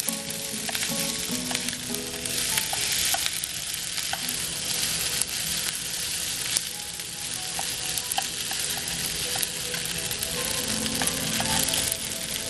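Food sizzling and frying in a pan, a steady hiss with scattered crackles and pops. Soft music plays underneath.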